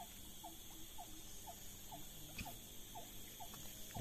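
A short, falling chirp repeats evenly about twice a second over a steady, high insect drone.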